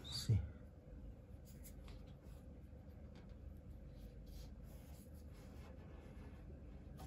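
Faint rubbing and brushing of fingers on a chrome radiator valve and its pipe joint, feeling for leaks, over quiet room tone.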